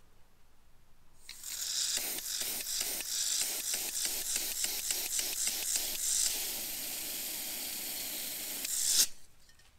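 Aerosol carb cleaner hissing through a Honda VTX1800 fuel injector as the injector is pulsed open with a power probe, spurting about four times a second for a few seconds and then spraying steadily before cutting off suddenly. The injector sprays freely: it is clean and not gummed up.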